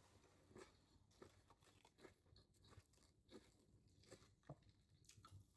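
Faint close-up chewing of a soft sandwich, with small wet clicks of the mouth about twice a second.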